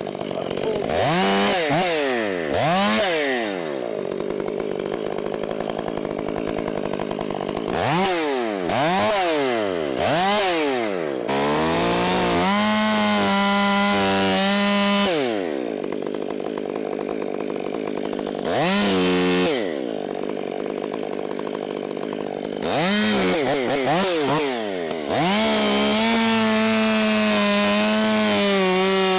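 Chainsaw engine revving up and down in quick blips between stretches of idle. Twice it is held at high revs for a few seconds, as when cutting wood.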